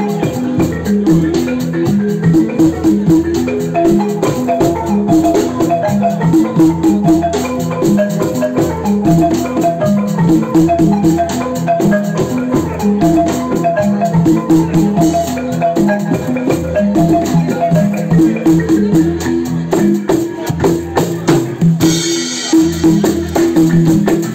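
Live band music: a pitched instrument repeats a short melodic pattern of quick notes over a shaker keeping steady time. A short burst of hiss sounds near the end.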